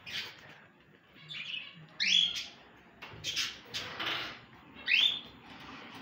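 Caged cockatiels and budgerigars chirping, with a string of short chirps and two loud sweeping calls about two and five seconds in.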